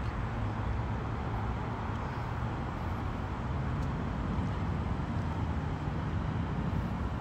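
Steady low rumble of road vehicle noise, with no distinct events.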